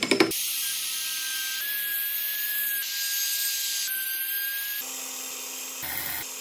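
A small power tool working wood: a steady high whine over a hiss of cutting or sanding. It shifts slightly at several abrupt splices.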